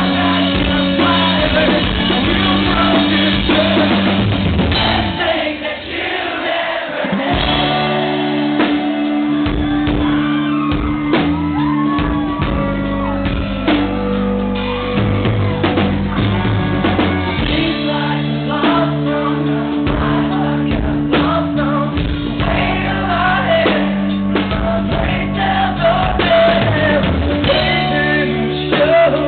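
Live rock band playing loudly in a hall, a male lead singer singing and shouting over acoustic guitar and a drum kit. The band thins out briefly about six seconds in, then comes back in full.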